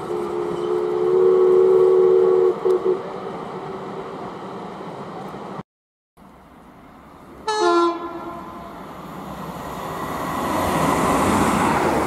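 Steam locomotive whistle giving a long two-note blast that ends in a couple of quick toots. After a cut, a second, brief single-note blast comes about halfway through, then the growing noise of a train running past.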